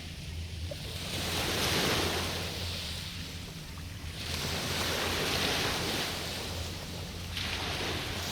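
Waves washing onto the shore, swelling and falling back about every three seconds, three times, over a steady low rumble.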